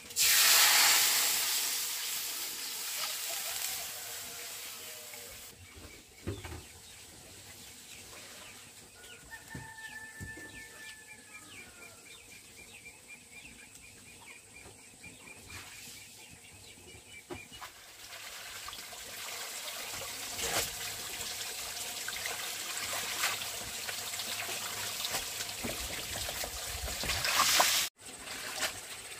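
Water running or trickling, loudest in the first few seconds and rising again over the last ten seconds.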